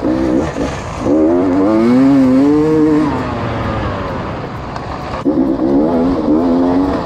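Off-road motorcycle engine revving up and down as the throttle is worked, its pitch wavering. It picks up about a second in, eases off near three seconds, and revs again a little after five seconds.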